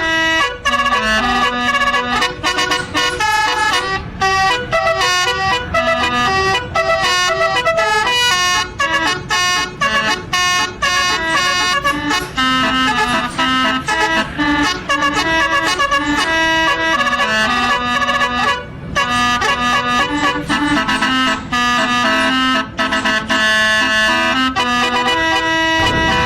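Basuri musical bus horn playing a melody: loud held notes that step from pitch to pitch, one after another, with short breaks between phrases.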